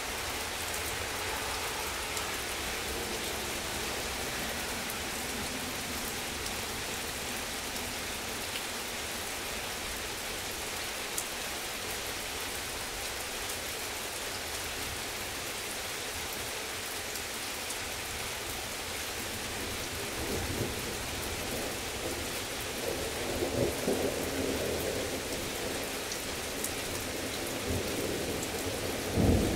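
Heavy rain falling steadily, with thunder rumbling in about two-thirds of the way through and a sharp, louder thunderclap just before the end.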